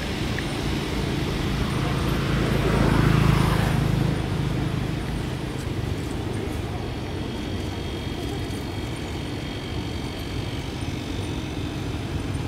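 Low rumble of motor-vehicle traffic, swelling as a vehicle passes a few seconds in, then settling to a steady background.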